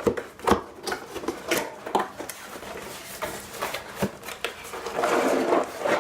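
Cardboard box and packaging being opened and handled: a string of short knocks and scrapes, then a longer rustling scrape near the end.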